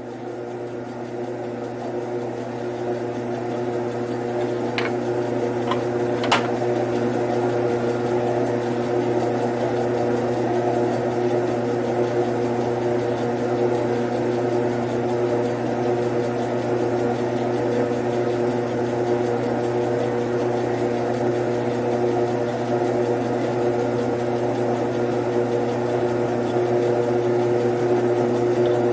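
Grizzly G9972Z metal lathe running: a steady motor and gear-train hum that swells over the first few seconds and then holds, with a few sharp clicks about five to six seconds in as the carriage controls are worked.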